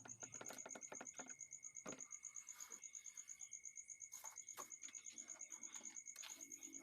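Faint insect chirping, likely a cricket: a high, rapid, even trill of about nine pulses a second that runs steadily. A few faint clicks and taps are heard here and there.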